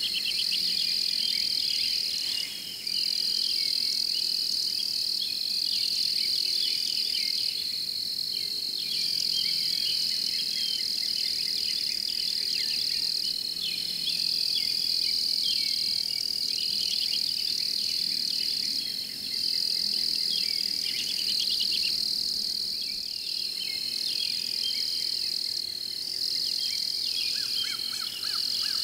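Chorus of crickets and other insects: a steady high-pitched trill with many quicker pulsed chirps beneath it, and a lower pulsed trill joining in near the end.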